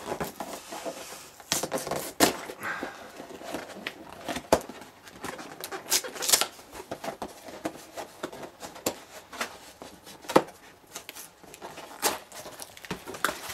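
A cardboard LEGO set box being pried open at its firmly glued end flap: irregular scraping, rubbing and tearing of card under the fingers, with a few sharp clicks as the glued flap pulls loose.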